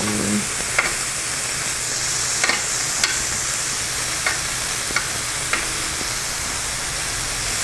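Marinated pork riblets sizzling on a Brentwood indoor electric grill, a steady hiss. Several short clicks of metal tongs against the grill plate come as the pieces are turned.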